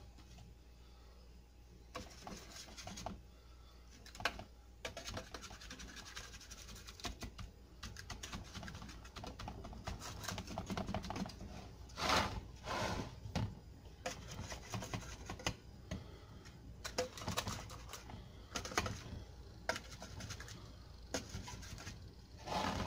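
A measuring cup pressing and tamping graham-cracker crumbs into a springform pan lined with wax paper: irregular light taps, knocks and scraping.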